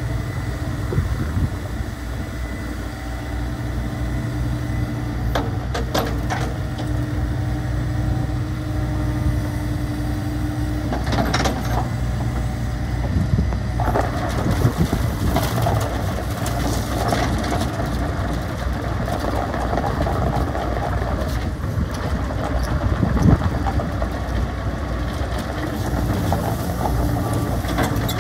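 2015 Takeuchi TB269 midi excavator's diesel engine running steadily while its hydraulics swing the machine and work the boom and bucket. A few short knocks from the bucket and linkage come through, and the sound gets busier about a third of the way in.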